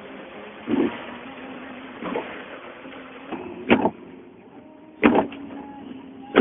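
Traffic on a flooded city street: a steady hum of vehicle engines and road noise, broken by five short, loud bursts of noise.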